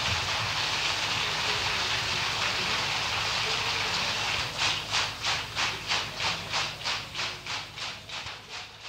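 Audience applause, then clapping in unison at about three claps a second, fading out as the live recording ends.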